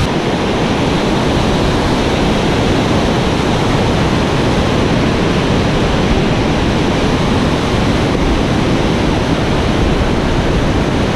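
Whitewater of a large river rushing over falls and rapids: a loud, steady, unbroken rush of water.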